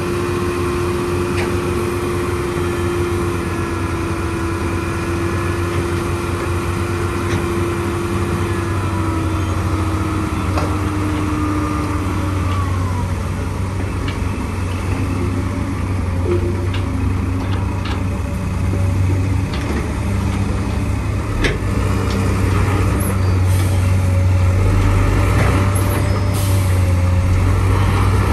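Diesel engines of a Komatsu PC200 excavator and a dump truck running at a construction site, with a low steady hum and a whine that sags and fades about ten seconds in. A few sharp knocks come in the second half, and the engine noise grows louder near the end.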